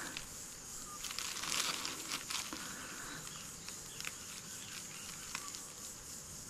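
Dry leaves and bark fibres crinkling and crackling as they are crumpled and worked by hand into a tinder bundle, with a denser flurry of crackles about one and a half to two and a half seconds in.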